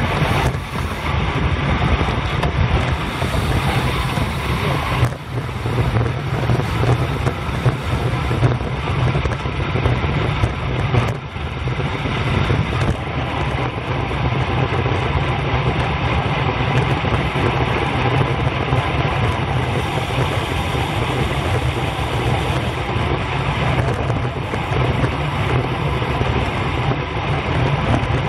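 Wind buffeting the microphone of a camera on a road bike moving at about 30 mph: a loud, steady low rumble and rush.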